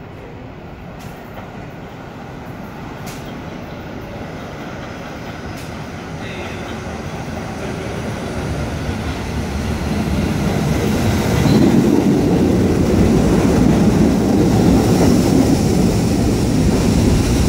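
R68A subway train arriving at a station platform, its rumbling growing steadily louder for about ten seconds as it approaches, then running loud and steady as the cars roll past alongside.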